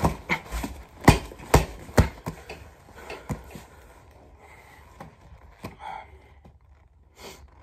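Fists hitting an Everlast heavy punching bag in a quick flurry of thuds over the first three seconds or so, then only a couple of softer knocks as the bag is steadied.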